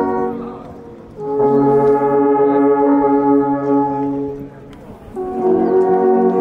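An ensemble of alphorns in F-sharp playing long held chords together. A chord dies away in the first second, a new chord sounds for about three seconds and fades, and another begins about five seconds in.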